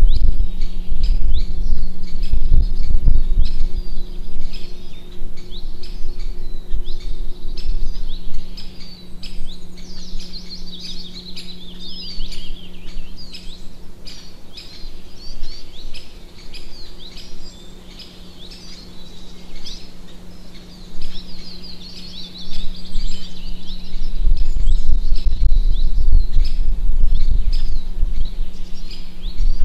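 Many small birds chirping and twittering, short quick calls throughout. A steady low hum runs underneath, and heavy low rumbling comes in at the start and again near the end, the loudest part.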